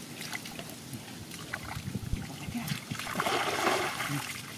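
Muddy water splashing and sloshing as a plastic basket is dipped and worked through a shallow mud pool, with scattered small splashes and clicks; the loudest splashing comes about three seconds in and lasts about a second.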